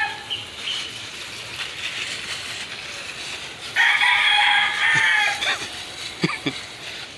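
A rooster crows, one long loud call starting about four seconds in, over the steady hiss of a hose spray nozzle showering water onto soil in plastic trays.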